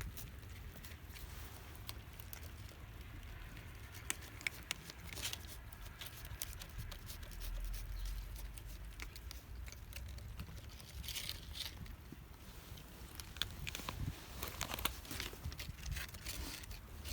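Scattered small crunching and crackling clicks, busiest about a third of the way in and again in the second half, over a steady low rumble of wind on the microphone.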